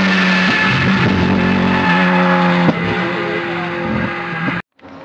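Rally car engine at high revs through a bend, its pitch stepping down and up with the gear changes, with a sharp pop about two and a half seconds in. The sound cuts off abruptly near the end and comes back much quieter.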